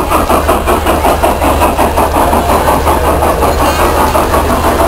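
Electric model train running along its track: a steady motor hum under a fast, even pulsing of the wheels and drive.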